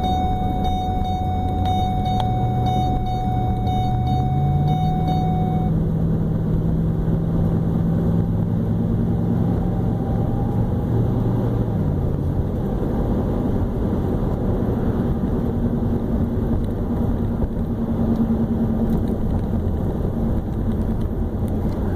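2010 Ford F-150 running with a steady low rumble. Its engine hum rises in pitch about four seconds in, holds, and drops back about twelve seconds in.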